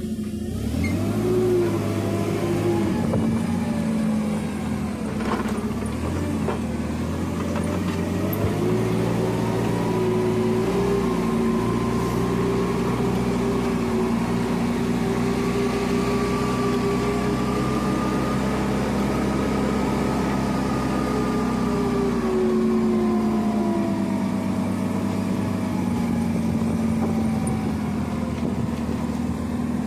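Forklift engine running as the forklift is driven, its pitch climbing about eight seconds in, holding high, then falling back near the end.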